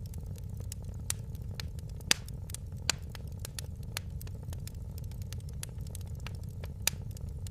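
Wood fire in a fireplace crackling: irregular sharp pops and snaps over a steady low rumble of the burning fire. The loudest pops come about a second in, at two seconds, at three seconds and near the end.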